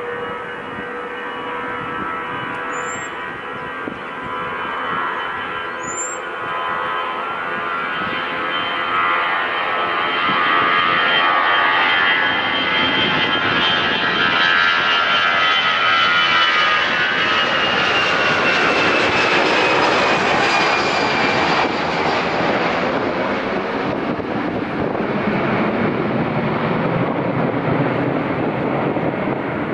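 Airbus A320's two CFM56-5A3 turbofan engines at takeoff thrust as the jet rolls down the runway and climbs away. The fan whine, several steady tones, swells louder, sweeps down in pitch as the aircraft passes about twenty seconds in, then settles into a broad rumble.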